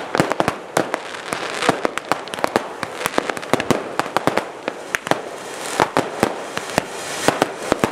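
Aerial fireworks bursting in a dense barrage: sharp bangs several times a second, one on top of the next, over a steady hiss.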